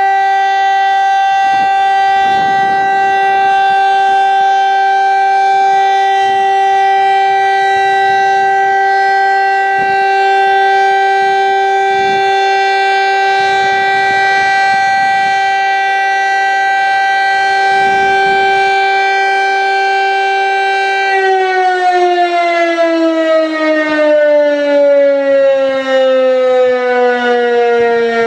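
VEM DS977 electric motor-driven siren sounding a steady tone of about 384 Hz. About 21 seconds in it is switched off, and the pitch slides steadily down as the rotor slows, with the loudness wavering.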